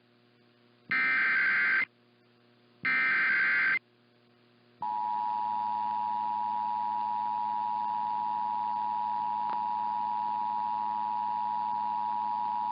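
Emergency Alert System SAME header: two short, harsh digital data bursts about a second apart. About five seconds in, the broadcast EAS two-tone attention signal (853 and 960 Hz) begins and holds steady.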